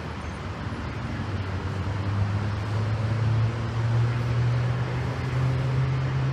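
Jet airliner departing: a steady low engine drone over a broad rushing noise that grows louder and steps up slightly in pitch about three and a half seconds in.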